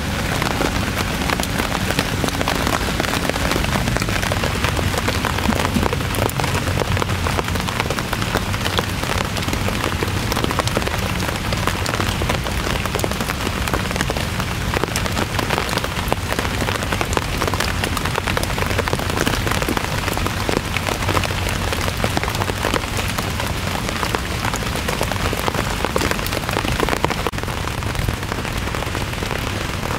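Heavy rain falling steadily, a dense patter of countless drops.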